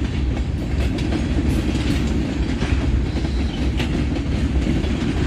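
Freight cars of a Norfolk Southern manifest train rolling past: a steady rumble with wheels clicking over the rail joints.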